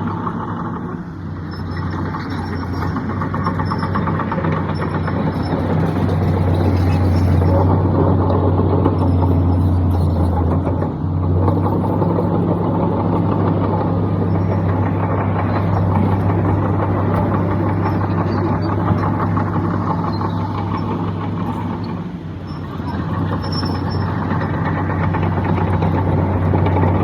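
Heavy diesel engine of earthmoving machinery running steadily with a deep hum, briefly dipping in level about a second in, around eleven seconds and around twenty-two seconds.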